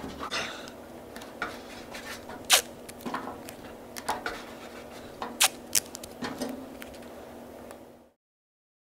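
Masking tape being pulled off the roll, torn and pressed onto a steel dash panel: scattered sharp clicks and taps with light scratching, over a steady low hum. The sound cuts off to silence about eight seconds in.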